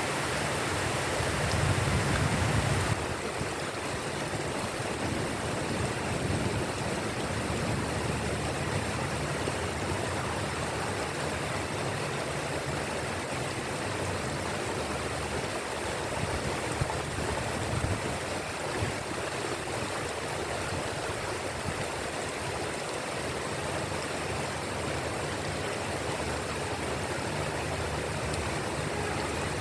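Steady heavy rain falling, an even hiss of rain. It is a little louder for the first three seconds, then settles.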